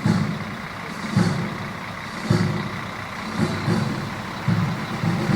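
JLTV armoured tactical vehicles driving past, with a steady rumble and a low thump repeating about once a second.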